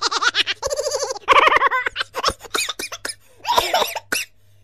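Laughter in quick ha-ha bursts, followed by a run of short sharp clicks near the middle.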